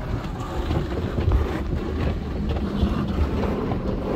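Automatic tunnel car wash heard from inside the car: spinning cloth brushes and water spray swish and slap against the windows and body over a steady low rumble, with a few short knocks.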